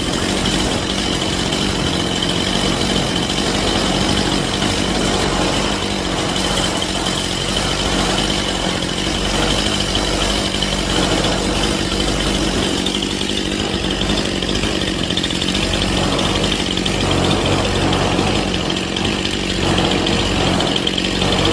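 Stihl MS181C chainsaw's small two-stroke engine idling steadily, at about 2,800 rpm, while its low-speed carburettor mixture screw is turned in search of the sweet spot.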